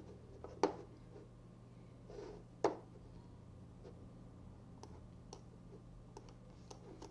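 Computer mouse clicks: two sharp ones, about half a second and nearly three seconds in, and a few fainter ticks, over a low steady electrical hum.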